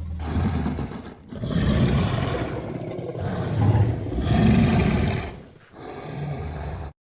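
Woolly mammoth sound effect: a run of loud, low animal calls, each lasting a second or more, with short breaks between them, cutting off suddenly just before the end.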